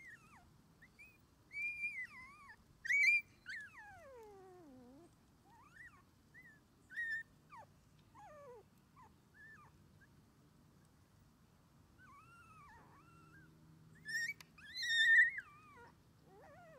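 Three-week-old Shiba Inu puppy whimpering and squealing in short high-pitched cries, several sliding down in pitch, one long whine falling far down about four seconds in. The loudest squeals come about three seconds in and near the end.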